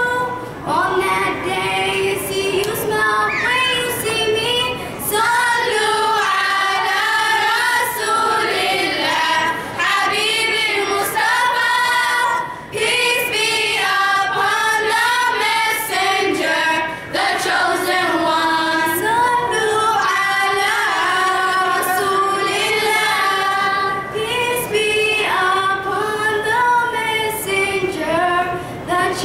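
Group of girls singing a nasheed a cappella, one girl leading at the microphone with the others singing along.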